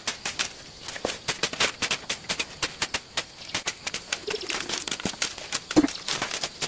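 Rapid, irregular clicking and scraping, several strokes a second, with a brief low pitched sound about six seconds in.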